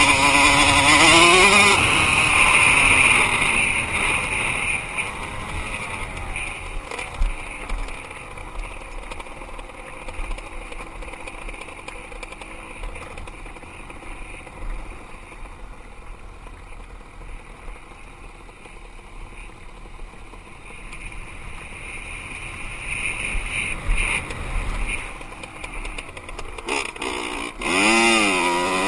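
Dirt bike engine running under a ridden load, its pitch rising and falling with the throttle. It is loud at the start, eases off to a lower, quieter note through the middle, and revs up hard again near the end.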